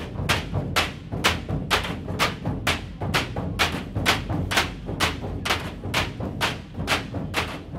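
Dhol tasha pathak drumming: massed dhol barrel drums struck with sticks in a steady driving rhythm, sharp strokes about three a second over a continuous low booming.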